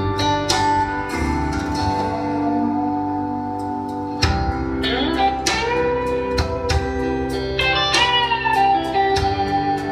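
Blues guitar playing an instrumental passage of picked notes, several of them sliding up in pitch.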